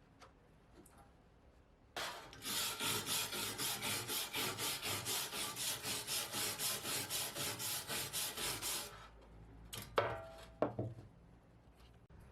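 Rapid back-and-forth rubbing strokes, about four a second, as rust is scoured by hand off a steel knife blade, running for about seven seconds. Near the end come two sharp metallic clinks with a short ring.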